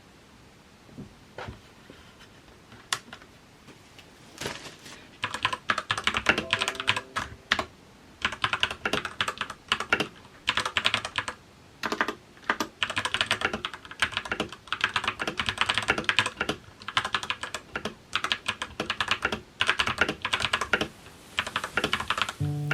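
Typing on a TM860 mechanical keyboard fitted with stock, unlubricated Outemu Panda switches: a few scattered key presses, then fast, continuous typing from about four and a half seconds in.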